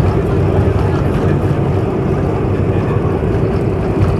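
Cabin noise of a Boeing 747-400 on its landing rollout, heard from a window seat behind the wing: a steady, loud rumble of engines, airflow and wheels, with a constant low hum and a steady higher tone running through it.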